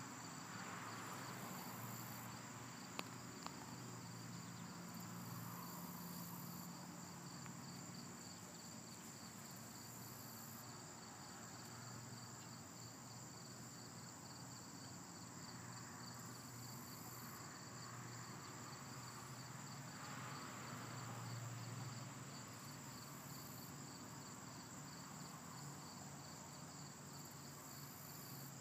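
Faint, steady chorus of chirping insects: a continuous high trill with a rapid pulsing chirp over it. Two short clicks about three seconds in.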